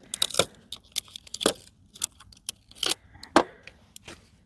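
Small metal silhouette targets being handled, clinking and knocking together irregularly, with some rustling.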